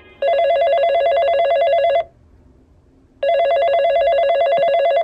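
Cordless phone ringing with a fast-warbling electronic tone: two rings of about two seconds each, about a second apart.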